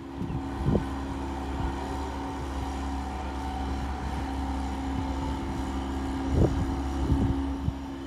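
An engine running steadily at an even pitch, with a brief thump about a second in and a louder one near six and a half seconds.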